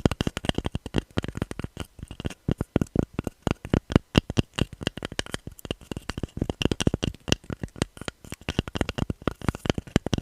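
Fingernails tapping rapidly on a hard object, many quick uneven clicks in runs.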